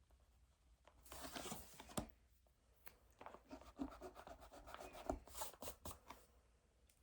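Writing by hand on paper, quiet and scratchy: a rubbing stroke about a second in, a sharp tap at two seconds, then a run of short, quick strokes that stops shortly before the end.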